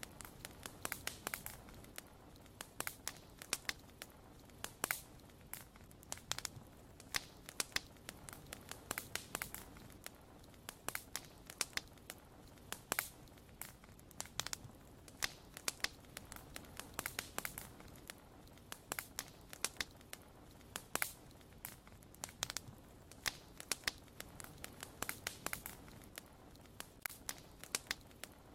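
Wood fire crackling: irregular sharp pops and snaps, several a second, over a faint steady background.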